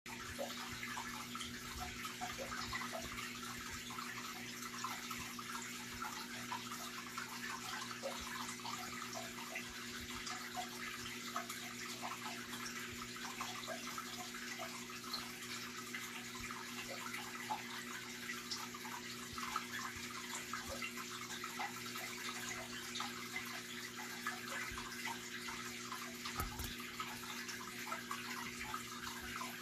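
Aquarium water circulation from the filters and current pump of a riffle-style freshwater tank: a steady trickling, splashing rush of water full of small crackles and drips, over a steady low motor hum.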